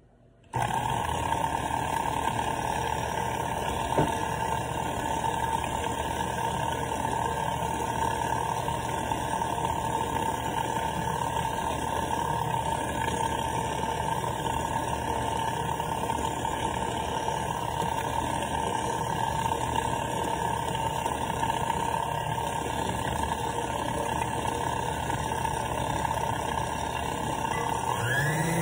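Electric kitchen mixer running steadily, switched on suddenly about half a second in. Its pitch rises near the end as the motor speeds up.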